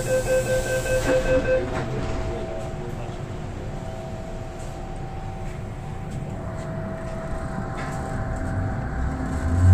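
MTR Island Line M-train: rapid door-closing warning beeps for the first second and a half, a knock as the doors shut, then the train pulls away with low rumble and a faint electric motor whine building toward the end.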